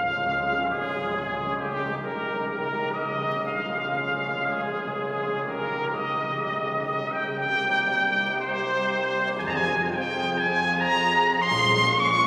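Soprano cornet playing a slow solo melody of long held notes, with a brass band sustaining chords beneath it.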